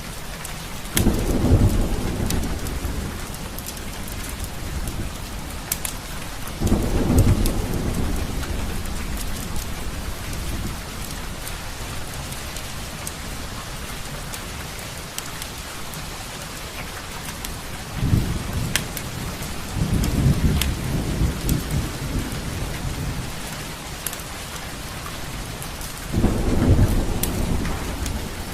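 Steady rain with about five low rolls of thunder swelling and fading, and small sharp crackles from a fireplace scattered through it.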